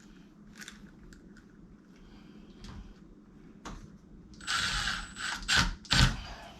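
Screws being driven into a deadbolt strike plate with a screwdriver: faint scattered clicks, then a louder stretch of metal turning and scraping about four and a half seconds in, and two sharp knocks near the end.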